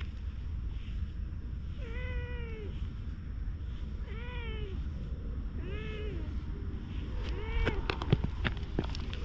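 Domestic cat meowing four times, each a short meow that rises and falls in pitch, spaced about two seconds apart. A few sharp clicks come near the end, over a steady low rumble.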